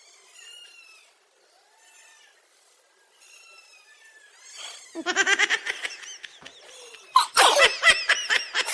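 High-pitched laughter in two rapid bouts, the first about five seconds in and the second, louder, about seven seconds in. Before that come a few faint, short, high-pitched calls.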